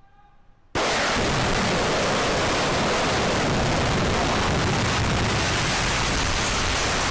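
Explosive demolition of a concrete power-station cooling tower: the charges go off suddenly less than a second in, and a loud, steady noise of the collapse and falling debris follows without a break.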